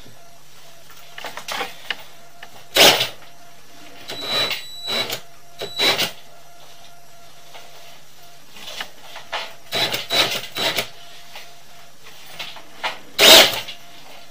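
A drain-cleaning machine's chain knocker head spins inside a clogged drain pipe, rattling and clanking against the pipe in irregular bursts over a steady low hum.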